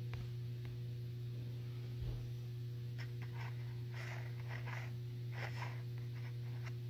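Steady low electrical hum of room tone, with a run of faint short scratchy taps and rustles from about three seconds in.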